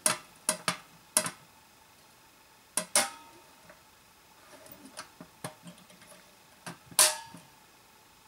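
Small hinged door cut into the side of a thin-walled metal beer keg being opened and shut by hand: a scattered series of light metallic clicks and taps with a short tinny ring. The loudest click comes about seven seconds in, as the door closes.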